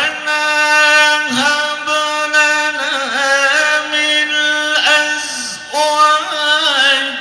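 A man's solo voice chanting an Arabic recitation in a melodic style through a microphone, holding long notes with wavering ornaments and breaking briefly between phrases.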